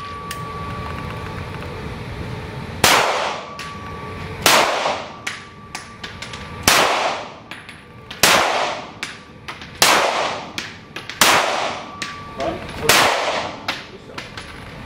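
Heckler & Koch P30L pistol shots on an indoor range: seven loud shots at about one-and-a-half-second intervals, each trailing into an echoing ring in the hall, with lighter metallic clinks between them.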